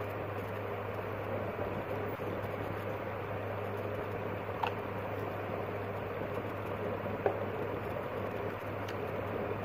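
Steady background hiss with a constant low hum, and two faint clicks about four and a half and seven seconds in.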